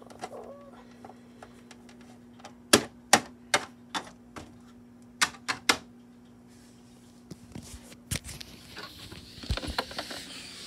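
A small plastic Littlest Pet Shop figure tapped on a plastic toy tabletop: four sharp clicks about half a second apart, then three quicker ones. Rustling handling noise follows near the end.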